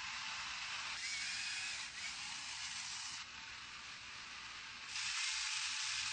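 Steady hiss without any clear tone, which drops softer twice and then jumps louder about five seconds in.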